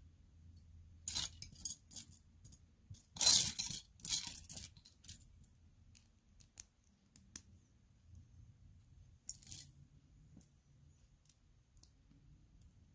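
Loose Lego plastic pieces clattering and clicking as they are handled: a few short rattles, the loudest about three seconds in, with scattered single clicks between.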